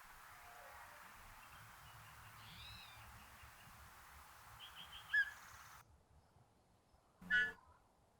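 Yellow-breasted chat giving scattered short whistled notes and chirps over a steady hiss, the loudest note about five seconds in. After an abrupt drop in the background near six seconds, a single short call sounds once near the end.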